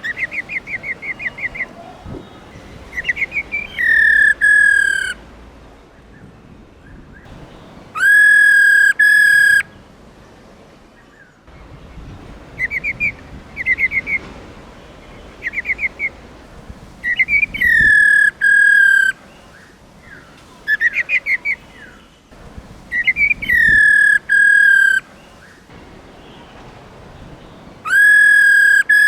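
Black-throated laughingthrush calling: quick rattling runs of short notes alternate with loud, clear whistles held about a second each, often two in a row, over and over. This is the female's 'ro ro' call, used to stir a male into singing.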